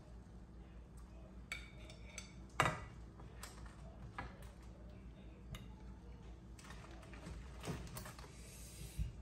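Spatula knocking and scraping in a frying pan as crab pieces are lifted out: scattered light taps and clinks, the loudest about two and a half seconds in.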